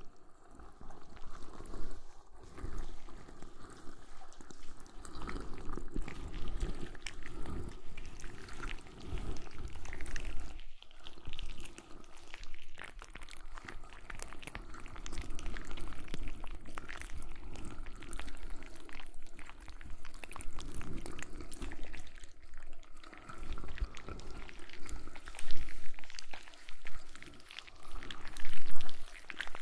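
Wet rubbing and squishing sounds right on a binaural microphone: ASMR sounds for tentacles massaging the head, with a few louder swells near the end.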